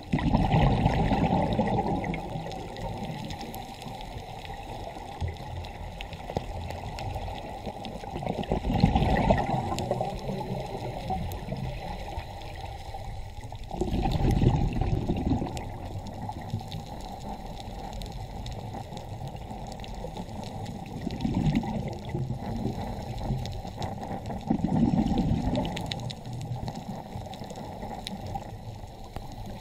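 Underwater sound through a dive camera's housing: a steady low rush of water, with louder bubbling surges about five times, a scuba diver's exhaled bubbles.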